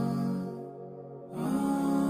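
Background music of slow, held chords in a gentle new-age style. It fades down a little after a half second in, then comes back on a new chord before the end.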